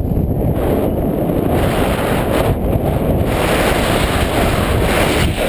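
Wind noise from air rushing over a camera microphone on a paraglider pilot in flight just after launch: a loud, steady, low rush.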